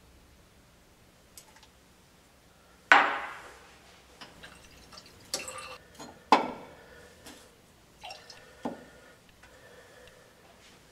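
Laboratory glassware clinking and knocking: one sharp, ringing clink about three seconds in, the loudest, then several smaller clinks and taps around six seconds and one more near nine seconds.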